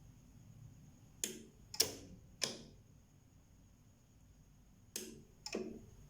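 Pulse arc welder firing short weld pulses on stainless steel beads: five sharp snaps, three in quick succession about a second in and two more near the end, each with a brief fading tail. A faint steady high tone runs underneath.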